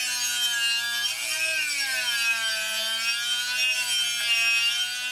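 Dremel rotary tool with a sanding drum grinding the cast intake manifold runner to clear the exhaust header: a steady high motor whine whose pitch rises briefly about a second and a half in, then settles.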